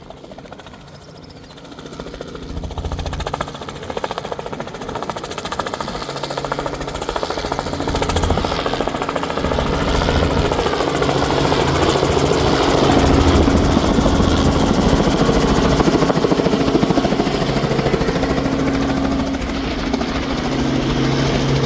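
Helicopter coming in to land, its rotor blades beating rapidly over a steady engine whine, growing louder as it nears and then holding loud.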